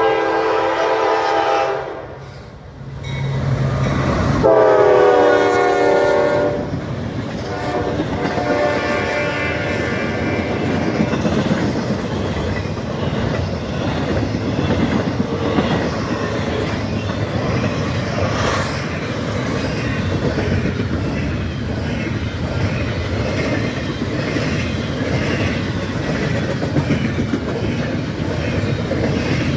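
Diesel freight locomotive horn sounding two blasts, the second louder, followed by a long freight train rolling past with its wheels clacking over the rail joints.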